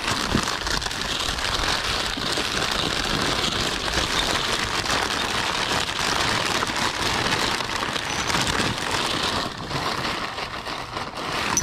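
White packing paper rustling and crinkling steadily as hands dig through a cardboard box and unwrap glassware from it, easing off briefly near the end.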